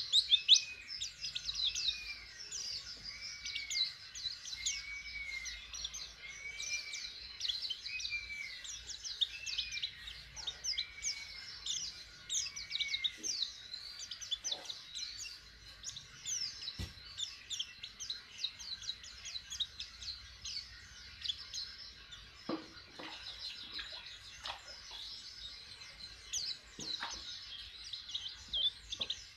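White-eye (pleci) chirping and twittering in a rapid, high run of short notes, a young bird just starting to sing. Through the first half, a slower series of lower arching notes repeats about once a second beneath the chirps.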